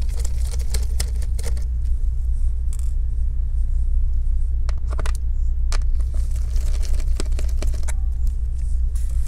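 Scattered small clicks and light metallic ticks of a Phillips screwdriver backing out the small battery screws inside an opened laptop, with the screws and plastic parts being handled, over a steady low hum.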